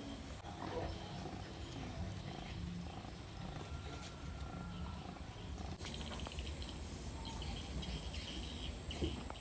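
Outdoor rural ambience: a steady high-pitched insect drone that grows stronger about six seconds in, with faint rapid chirping, over a low rumble.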